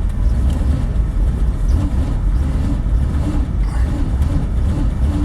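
1980 Dodge D150 truck engine running on choke just after a cold start, warming up and not yet idling on its own.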